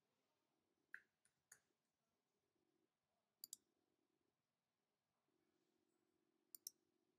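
Faint computer mouse clicks: single clicks about a second in, then two quick double clicks, one near the middle and one near the end, over a faint low hum.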